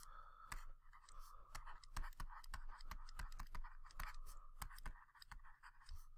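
Faint taps and scratches of a stylus on a tablet surface as words are handwritten, in irregular short ticks a few times a second.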